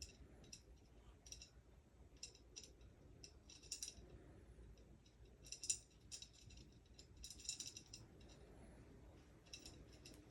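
Feather wand cat toy being waved and batted, giving faint clicking rattles in short, irregular bursts, several close together about three quarters of the way in.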